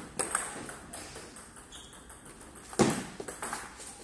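Table tennis ball clicks: a few light ticks early on, then a loud sharp knock nearly three seconds in as a rally gets under way, with the ball striking the paddles and the table.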